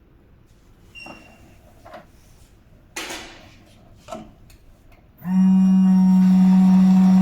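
Hot coffee vending machine starting its drink cycle: a few mechanical clicks and clunks, then about five seconds in a loud, steady electric hum starts up as the machine begins making the drink.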